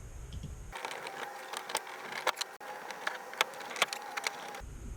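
Clicks and rattles of a fuel pump's hose clamp and fittings being worked loose by hand: a run of sharp, irregular clicks from about a second in until near the end.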